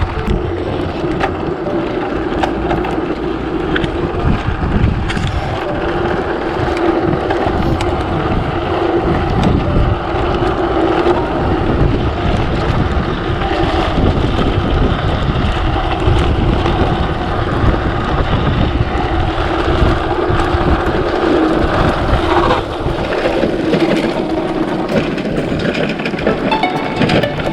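Strong gusting wind buffeting the microphone during an electric mountain bike ride, with a steady hum running underneath.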